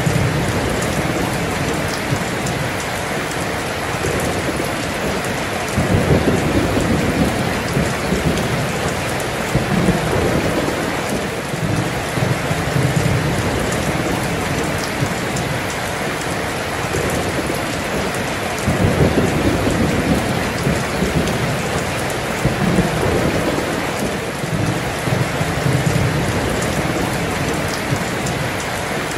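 Heavy rain pouring down in a steady, dense hiss, with rolling thunder rumbling low several times underneath, swelling loudest about six seconds in and again a little past the middle.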